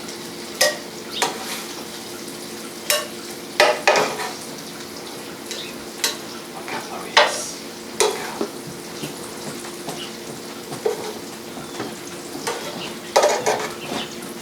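Metal utensil clacking and scraping against a sauté pan as chicken and mushrooms in marsala sauce are lifted out, in irregular knocks over a low steady hum.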